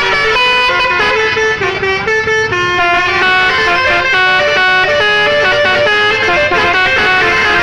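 Bus 'telolet' multi-tone air horn playing a quick melody, one note stepping to the next without a break.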